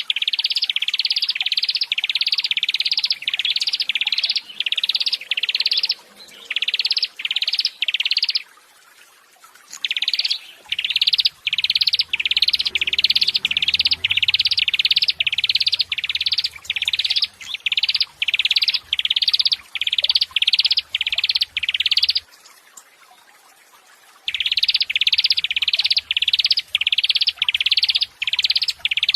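Bird call: a short buzzy note repeated about twice a second in long runs, broken by two pauses of a second or two.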